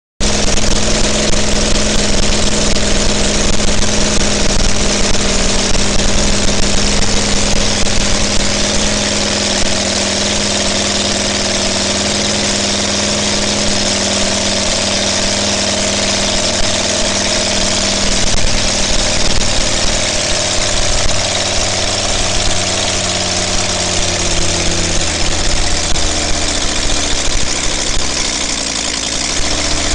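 A 1/3-scale model Kinner B5 five-cylinder radial engine running steadily with its propeller spinning. The sound cuts in abruptly at the start, and the engine's pitch sags a little near the end.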